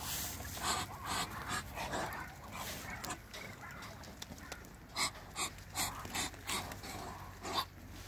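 Muscovy ducks giving a series of short, breathy huffing hisses, several in the first few seconds and a quicker run of them later on.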